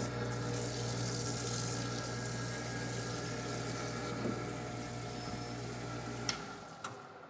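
Vintage Kleer-Flo parts washer running: its electric pump motor hums steadily while a high-flow stream of cleaning fluid pours from the flow-through brush and splashes into the tank. Near the end there is a click, then the motor hum stops and the sound dies away.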